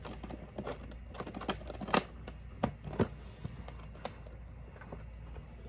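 Irregular light clicks and taps of objects being handled, the sharpest about two and three seconds in, over a low steady hum.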